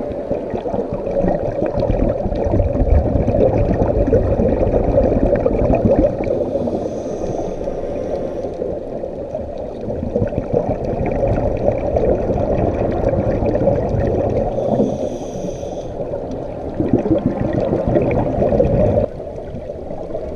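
Underwater scuba bubbles: divers' exhaled air gurgling and rumbling, with a brief higher hiss twice. The level drops abruptly about a second before the end.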